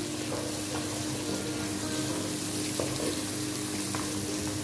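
Diced carrots and green bell pepper sizzling in oil in a pot while stirred with a wooden spoon: a steady hiss with a few faint scrapes of the spoon.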